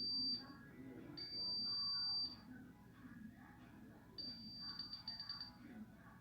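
Multimeter continuity buzzer beeping with a single high tone: a short beep, then a beep of about a second, then a stuttering run of short beeps near the end as the probes make and break contact on the phone's circuit.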